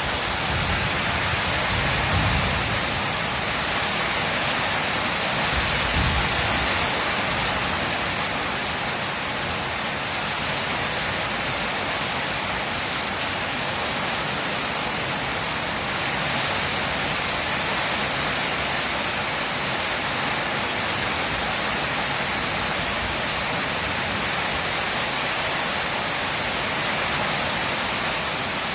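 Heavy rain falling steadily in a storm, a dense even hiss, with brief low rumbles about two and six seconds in.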